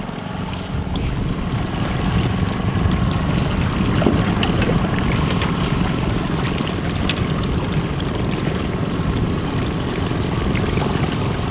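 Outboard motor running steadily at trolling speed, with water sloshing and splashing around the boat's stern.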